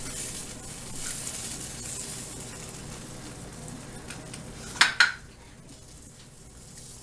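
Egg in the hole frying in butter in a frying pan, a fine sizzle that fades over the first few seconds. About five seconds in, two sharp knocks of a utensil against the pan, as the egg and bread are worked loose to flip.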